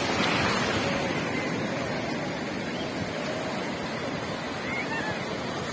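Sea surf breaking and washing up a shallow sandy beach: a steady rushing wash, strongest in the first second and then easing slowly.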